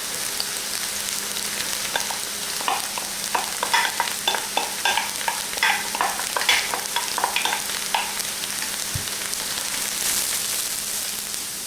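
Rinsed quinoa toasting in hot ginger-infused oil in an electric wok, sizzling steadily. A run of short clicks and scrapes from about two to eight seconds in, as it is stirred and starts to pop, the sign that it is toasting to light brown.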